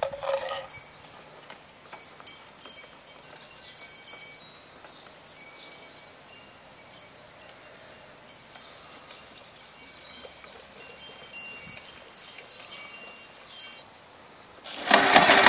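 Petrol poured from a plastic jerry can into a lawnmower's fuel tank, a light high trickling and tinkling. About half a second before the end, the Hayter Harrier 56 Pro's recoil starter is pulled and its engine cranks loudly, on a start the owner later says was tricky because the engine had flooded.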